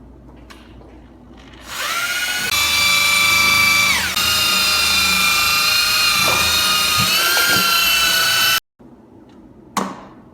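Hand-held electric drill stirring settled heat-dissipating filler back into liquid silicone. Its motor whine starts about two seconds in, climbs in pitch, dips briefly, holds steady and then cuts off suddenly, and a short knock follows near the end.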